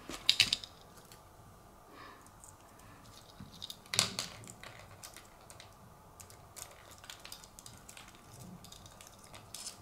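Sparse small metallic clicks and taps as jewellery pliers and steel key rings are handled while a jump ring is worked onto an acrylic keychain. There is a cluster of clicks at the start and one sharper click about four seconds in.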